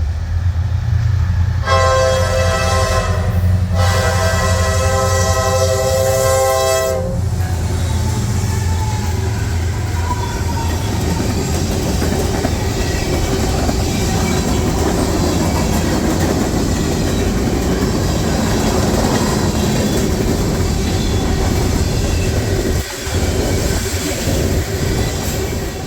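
Freight train passing close by: the diesel locomotives' deep engine rumble, with the multi-chime air horn sounding two blasts about two seconds in, a short one then a longer one. After that comes the steady rolling noise of wheels on rail as the freight cars go by.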